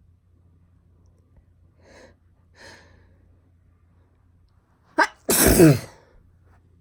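A girl sneezing once, loudly: two faint breaths in, then a short sharp catch and a big sneeze that falls in pitch as it ends.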